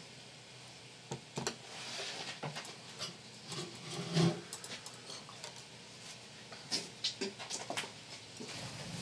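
Scattered footsteps and small knocks and clicks at a low level, with one duller thump about four seconds in.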